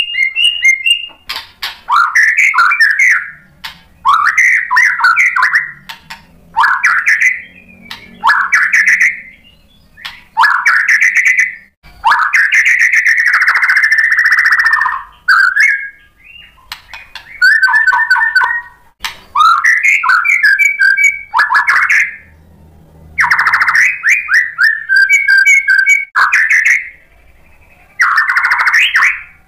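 White-rumped shama singing in full song: about ten loud, varied phrases of clear whistles and rapid trills, each a second or two long with short pauses between, one longer phrase of about three seconds near the middle.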